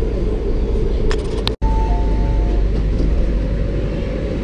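Steady low rumble of a Hong Kong MTR metro train at a station platform. A few clicks come about a second in, then the sound cuts out for an instant, and a short two-note electronic tone follows.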